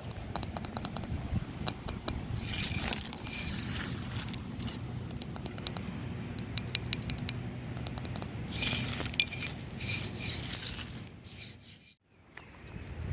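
Footsteps crunching and scraping irregularly over dry ground during a nature walk, with two louder crunchy stretches; the sound drops out briefly near the end.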